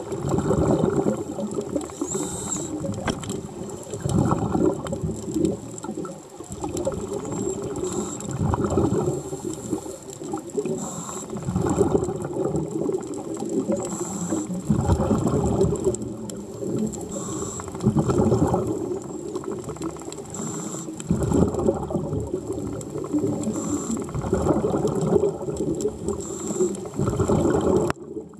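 Underwater sound of a scuba diver breathing through a regulator: exhaled bubbles crackle and rumble in surges every three to four seconds, with a faint hiss between them.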